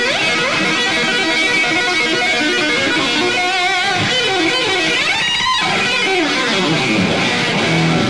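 Electric guitar, a Stratocaster, playing fast lead runs live. Rapid single-note lines include a wavering, vibrato-laden note about three seconds in and quick rising and falling runs around the middle.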